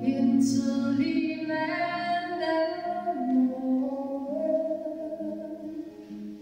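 A woman singing with acoustic guitar, in long held notes that glide from one pitch to the next. It grows quieter near the end.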